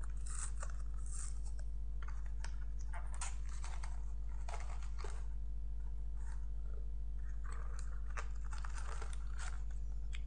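Snack package of Glico Double Pretz being worked open by hand: irregular crackling and tearing rustles of the packaging, over a steady low hum.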